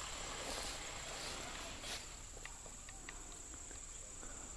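Faint, steady high-pitched trilling of insects in grass, with a few soft ticks.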